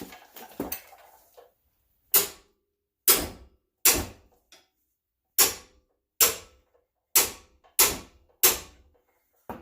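Eight sharp metal knocks, about one a second, each ringing briefly: blows struck while working loose a very tight 17 mm caliper bracket bolt on a front brake.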